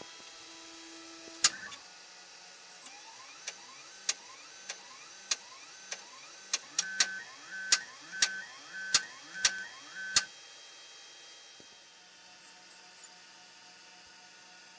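3D printer's stepper motors moving the print head and bed, in a series of short rising whines punctuated by sharp clicks, over a faint steady hum. Near the end, three short high beeps.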